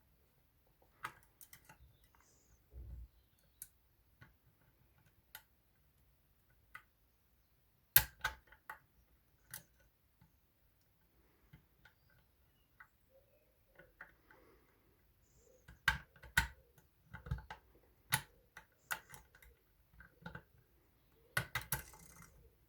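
Lever-lock picking tools working inside a Union 3G110 five-lever lock: scattered, irregular small clicks and light scrapes of metal on metal, the sharpest about eight seconds in and more frequent from about sixteen seconds on.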